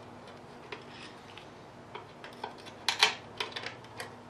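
Scattered metallic clicks and taps of a screwdriver working against a stripped Cummins diesel engine block, with a sharper cluster about three seconds in. A faint steady hum underneath.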